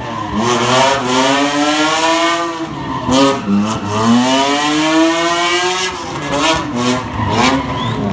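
BMW E36 with an S54 3.2-litre straight-six revving hard while drifting, its pitch climbing and falling in long sweeps as the revs swing, with sharp drops in revs about three and six seconds in. Tyres squeal and smoke under the engine.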